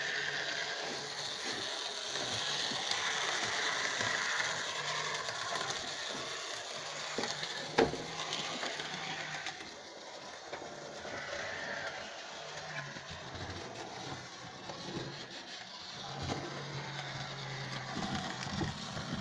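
Fleischmann BR 70 H0-scale model steam locomotive running on its track, its small electric motor whirring steadily, with one sharp click about eight seconds in.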